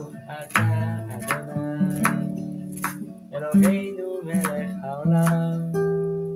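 Acoustic guitar strummed in slow chords that ring on between strums, with one chord left ringing near the end.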